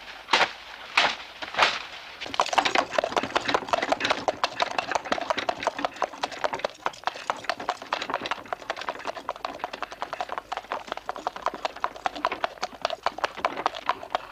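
Horses' hooves clip-clopping steadily on a paved street as horse-drawn cabs pass, starting about two seconds in after a few short, loud sounds.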